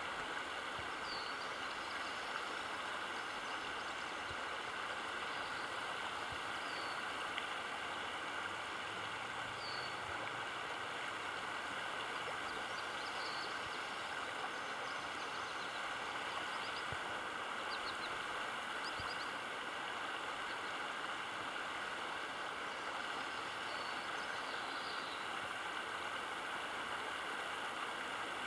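Steady rushing of floodwater flowing in a shallow sheet across a gravel road, with short high chirps now and then.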